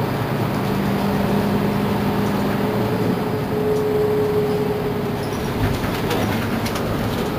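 Mercedes-Benz Citaro C2 city bus on the move, heard from inside: a steady drive noise with an engine and drivetrain hum that gives way to a higher whine about halfway through.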